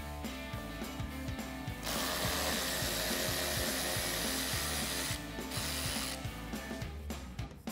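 Cordless electric ratchet spinning out a 7 mm bumper bolt. It whirs in one run of about three seconds starting about two seconds in, with rapid light clicking before and after.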